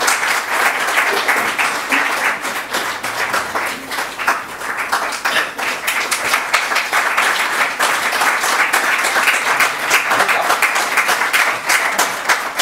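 Audience applauding, many hands clapping steadily without a break.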